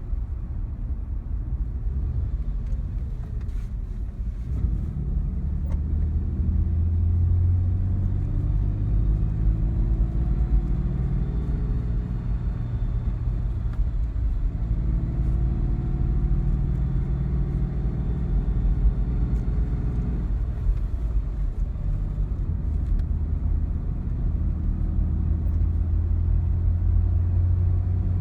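2006 Nissan Xterra's 4.0-litre V6 running, its engine note climbing in pitch and falling back a couple of times over a steady low drone. This is the sound the owner calls "wheezing".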